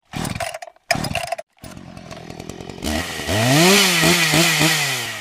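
Intro sound effect of a small motor, like a chainsaw: two short bursts, then a buzz whose pitch rises about three seconds in and holds with brief dips, fading out near the end.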